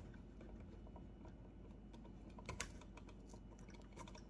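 Faint small clicks and scratches of copper electrical wires being twisted together by hand, with a few sharper clicks midway.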